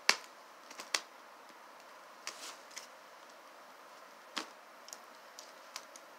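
About ten scattered sharp clicks and taps from hands handling a package and scissors, the loudest right at the start.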